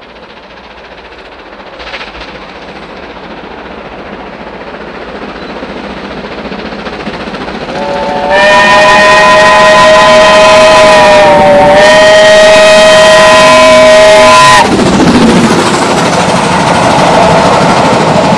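Steam locomotive approaching, its running sound growing steadily louder, then sounding a long whistle of several tones together for about seven seconds, with a brief dip in pitch midway, cut off sharply. The coaches then rumble past close by.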